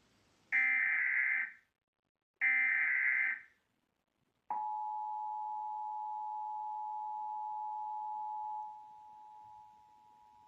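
Emergency Alert System test signal: two roughly one-second bursts of the raspy digital SAME header data, then after a second's gap the EAS attention signal, a steady two-tone 853 and 960 Hz alarm. The alarm drops in level in two steps near the end.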